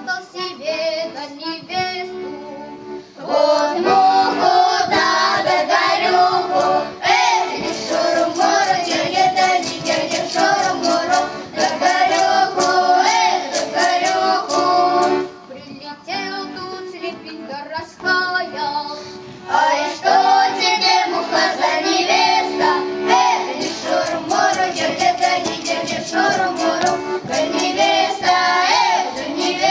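Children singing a folk song together with a woman's voice and accordion accompaniment, going softer twice, once early on and again about halfway through.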